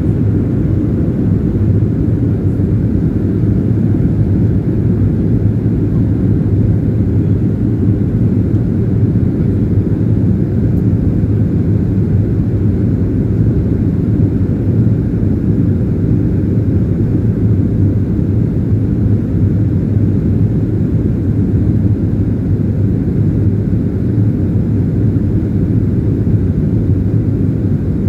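Steady cabin noise of a Boeing 737-300/500 in descent, heard from a window seat over the wing: its CFM56-3 turbofan engines and the airflow give a low, even rumble.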